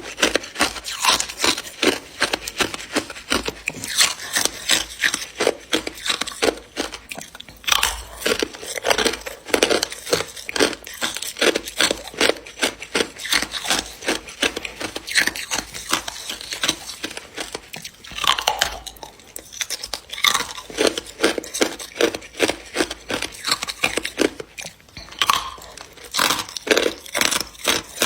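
Hard clear ice being bitten and chewed close to the microphone: a dense run of sharp cracking crunches, several a second, with brief pauses between bites.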